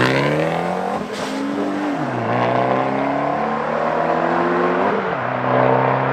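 Race cars accelerating hard from a standing start. The engine note climbs and drops back at each upshift, about two and five seconds in.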